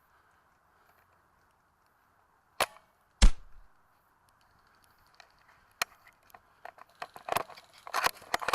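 An airsoft sniper rifle firing: a sharp crack about two and a half seconds in, then a louder hit with a deep thump. Scattered small clicks and rustles follow near the end.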